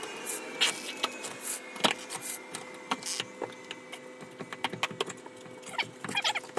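Irregular clicks and knocks of a manual tyre-changer bead breaker being worked around a motorcycle wheel as the wheel is turned, pushing the tyre bead off the rim. One sharper knock comes about two seconds in.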